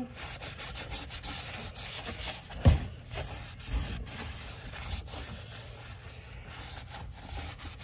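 A rag wiping and rubbing over the rubber of a foam-covered Craftsman lawn mower front tire: an irregular, scratchy scrubbing. One sharp knock comes a little under three seconds in.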